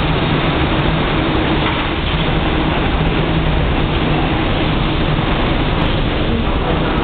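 25Z passenger coaches rolling past at speed: a loud, steady rumble and hiss of steel wheels on rails, with a low steady hum underneath.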